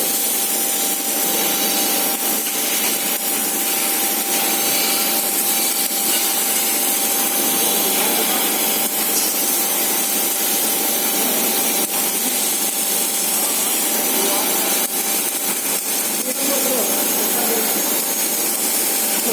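Welding machine running continuously: a dense, even crackling hiss with a faint steady whine under it.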